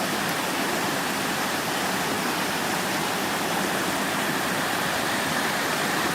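Flowing water rushing steadily: an even, unbroken hiss.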